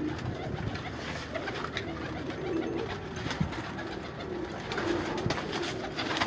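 Several domestic pigeons cooing, low repeated coos from different birds overlapping, with a few faint clicks.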